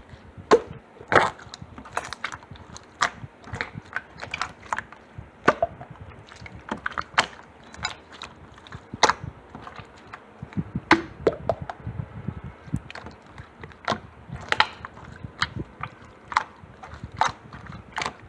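Slime being squeezed and pressed by hand, giving off irregular sharp clicks and pops, several a second.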